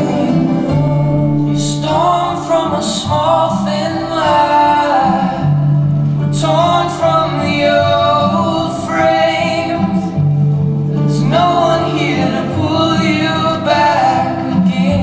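A song: a singing voice in phrases a few seconds long over instrumental backing with long held low notes.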